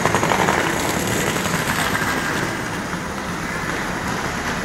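Steady street din of a busy city shopping street: a continuous wash of crowd noise and traffic with no single sound standing out.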